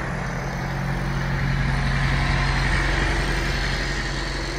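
Heavy diesel semi-truck engine idling: a steady low drone that swells slightly midway.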